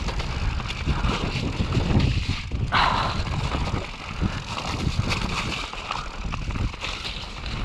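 Mondraker Chaser e-mountain bike being ridden over a dirt trail. It gives a steady low rumble of tyres and wind on the microphone, broken by frequent small knocks and rattles, with a brief higher-pitched sound about three seconds in.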